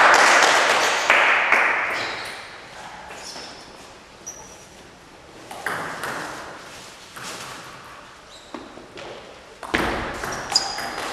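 Celluloid table tennis ball clicking against the table and the bats during a serve and a short rally: single sharp pings a second or so apart, closer together near the end, each ringing briefly in the hall. The loudest sound is a dense spell of noise at the start that fades over the first two seconds.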